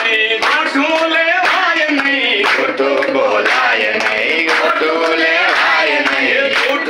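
A group of women and men singing a song together, clapping their hands in time.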